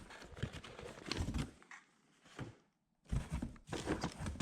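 Rustling and knocking of parts and packaging being handled while welder accessories are unpacked: two spells of irregular rustles and sharp clicks with a short quiet gap in the middle.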